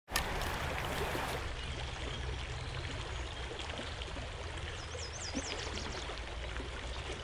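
Steady rushing outdoor ambience with a low rumble underneath, and a bird chirping a few quick notes about five seconds in.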